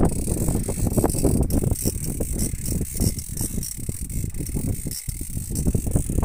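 Spinning fishing reel being cranked hard while a tope is played on a bent rod, giving a rapid run of fine clicks. Underneath runs a steady low rush of wind noise on the microphone.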